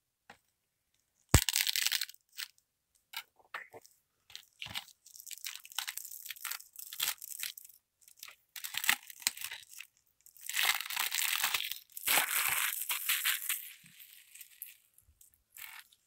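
Plastic shrink wrap being cut and peeled off a DVD case: a sharp click about a second and a half in, then irregular crinkling and tearing of the cellophane, thickest near the end and then tapering off.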